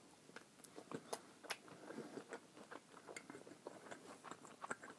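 A person chewing a bite of pan-fried chili frankfurter close to the microphone: a string of small, irregular moist clicks of mastication.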